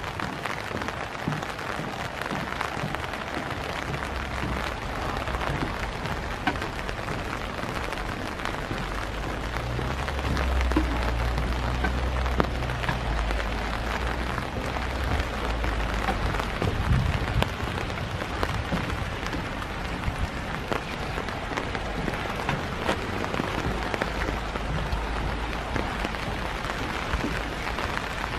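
Steady winter rain falling, an even hiss of drops with no let-up. A low rumble rises under it for several seconds in the middle.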